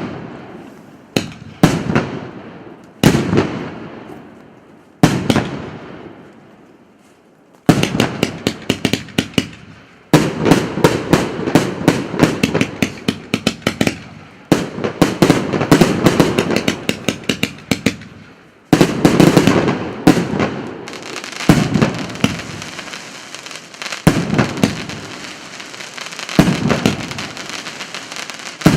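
A 78-shot fireworks cake of 1.2-inch and 2-inch shells firing: loud single bangs a second or two apart, then from about eight seconds in a rapid volley of many shots for some ten seconds, then separate booms again over a lingering crackle.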